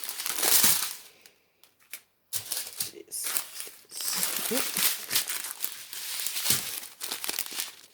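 Small plastic bags of diamond-painting drills crinkling as they are handled and flipped through, in irregular bursts with a brief pause about a second and a half in.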